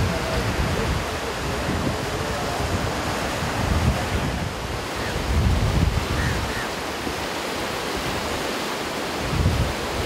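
Ocean surf breaking and washing up a sandy beach, with wind buffeting the microphone in low rumbling gusts.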